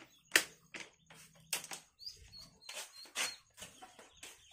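Newly hatched ducklings peeping in short high chirps, among a string of sharp clicks and rustles from handling; the loudest click comes just after the start.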